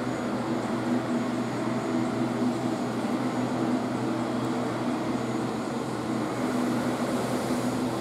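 Steady hum and rushing air of a restroom's ventilation system, even in level, with a low constant hum and some wavering tones above it.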